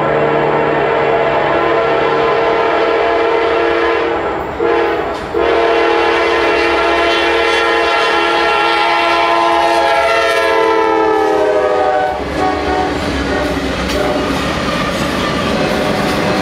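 Norfolk Southern diesel freight locomotive's air horn blowing a long chord, broken twice briefly about four and five seconds in, its pitch sliding down before it stops about twelve seconds in. The locomotives then rumble and clatter past on the rails.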